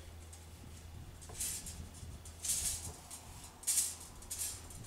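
Metal brake-line tubing scraping and rattling in the hands as it is bent to shape, in about four short hissy bursts over a steady low hum.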